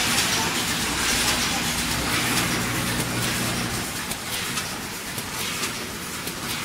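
Automatic snack-bag packing machine running: a steady mechanical hiss and hum, with faint regular clicks from the bag-making cycle. The hum fades about four seconds in and the clicks stand out more near the end.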